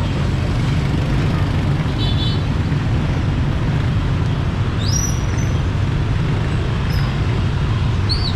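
Steady road traffic noise: a continuous low rumble of passing vehicles, with a couple of faint brief high tones over it.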